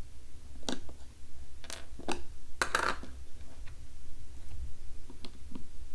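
Plastic handling noise as the snap-on lid of an Orbeez globe toy is pulled off: a few short clicks and scrapes in the first three seconds, one a little longer, over a steady low hum.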